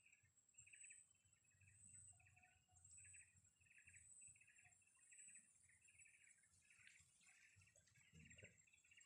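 Faint outdoor ambience of small creatures chirping: a high chirp repeated about twice a second over a thin, steady high-pitched whine that swells about once a second.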